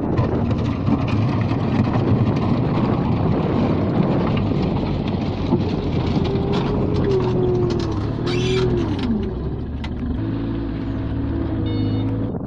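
Bobcat L213 skid steer loader running at work, a loud steady engine noise; between about six and nine seconds in a pitch rises and falls, and near the end it settles into steadier tones.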